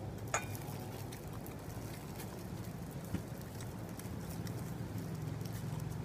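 Thin plastic food bag crinkling and rustling in the hands as it is opened and the food taken out, with a few sharper ticks, over a steady low hum.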